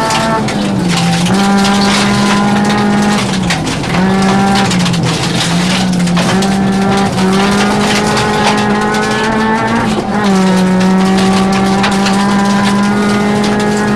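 Rally car engine heard from inside the cockpit, running hard at high revs, with the pitch dipping briefly at several gear changes. Gravel hiss and stones pattering against the underside fill the background.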